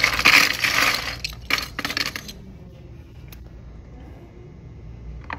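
Metal pinback buttons clinking and rattling against each other as a hand stirs through a wooden tray heaped with them; the clatter stops a little over two seconds in.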